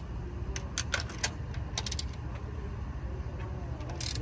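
Ratchet wrench and hand tools clicking irregularly while spark plug number 3 is being worked on, with a louder click near the end, over a steady low rumble.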